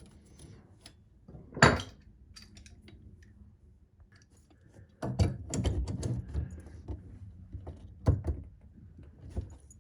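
Knocks and rattling as loosened sink drain trap pieces are handled and set aside: one sharp knock about a second and a half in, then from about five seconds a run of knocks and clatter with another sharp knock near eight seconds.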